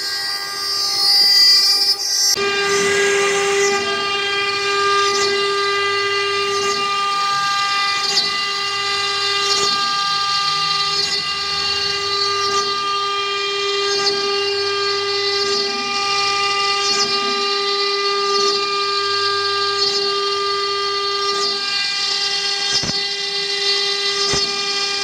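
CNC router spindle running at high speed while it engraves letters into a board: a steady, high whine with cutting noise under it. There are two sharp clicks near the end.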